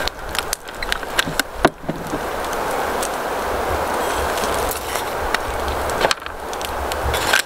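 Foil chip bag crinkling and glass hot sauce bottles clicking as they are handled and shaken over the bag, over a steady hiss. The crinkles and clicks cluster in the first couple of seconds and again near the end.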